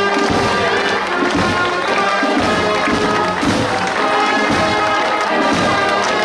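Marching band playing a march live, with sustained brass notes over a steady drum beat.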